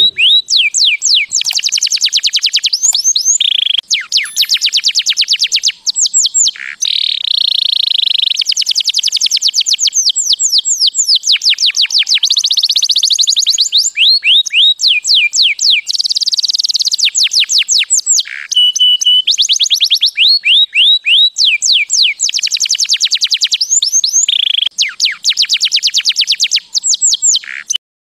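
Domestic canary singing a long, loud song: fast trills of rapidly repeated falling notes, broken now and then by short steady whistled notes, stopping abruptly at the end.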